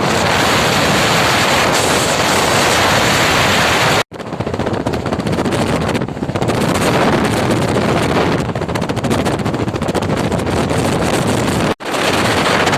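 Strong wind blowing straight onto the microphone: a loud, steady rushing roar. It cuts off abruptly twice and resumes at once.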